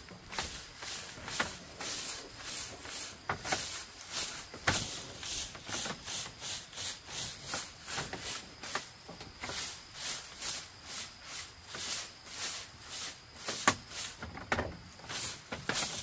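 Bundled-grass broom sweeping a split-bamboo slat floor: quick brushing strokes, about two or three a second, with a few sharper knocks among them.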